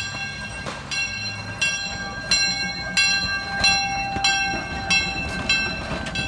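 A 2-4-0 steam locomotive passing close by with its bell ringing steadily, about one and a half strokes a second, each stroke ringing on over a low running rumble.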